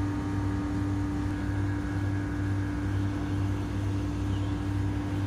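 An air conditioner's outdoor unit running: a steady low hum with a constant droning tone that does not change.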